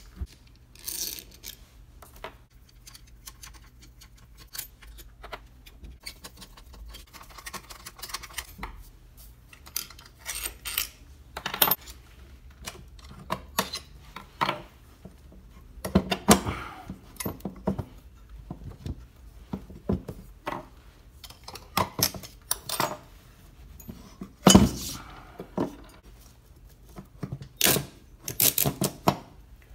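Metal clinks, taps and knocks as a washing-machine motor is taken apart by hand: a screwdriver working out its long steel through-bolts, bolts and the aluminium end housing set down on the table, and the stator handled off the rotor. A few heavier knocks stand out among the irregular small clicks.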